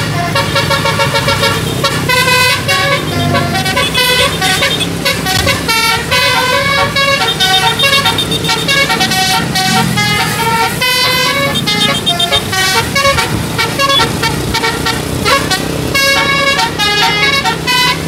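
Bus 'telolet' musical air horn playing a fast melody, note after note with short breaks between, over the steady hum of the bus engine.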